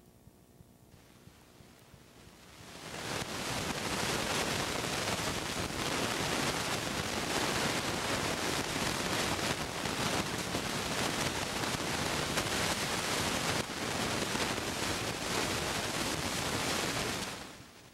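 A steady, even hiss that fades in about two and a half seconds in, holds level, and fades out near the end.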